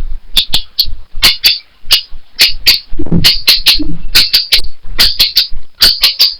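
A rapid, irregular series of sharp clicks, many coming in quick pairs or threes, with a brief low sound about three seconds in.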